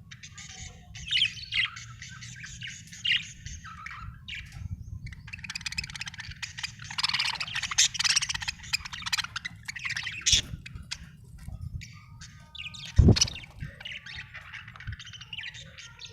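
Budgerigar chirping and warbling in busy bursts, with a couple of sharp knocks, the loudest about thirteen seconds in.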